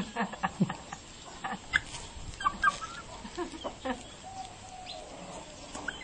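Chicken clucking in short calls, with sharp little clicks and taps scattered among them.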